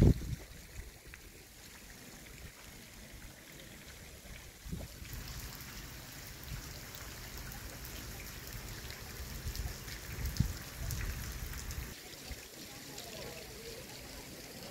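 Brine trickling down the brushwood walls of a saltwater graduation tower: a steady, rain-like patter. There is a sharp bump right at the start, a low rumble from about five to twelve seconds in, and faint voices near the end.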